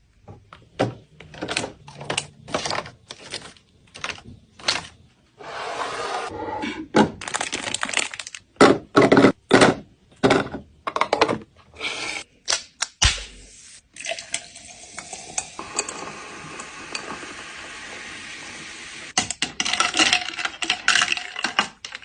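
Containers and jars clinking, knocking and being set down one after another while a fridge is restocked. Partway through, the knocks give way to a steady noise for several seconds, then the clinking resumes near the end.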